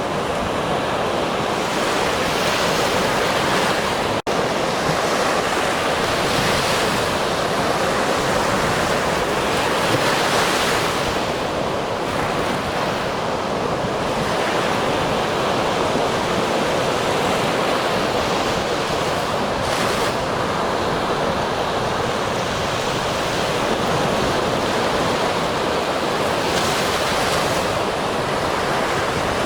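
Ocean surf: waves breaking and washing in, a steady rush that swells every few seconds.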